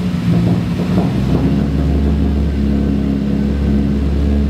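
Lamborghini Murciélago V12 engine running with the transmission in gear and the car up on a lift, the drive wheels free of load. The note is uneven for about the first second and a half, then holds steady.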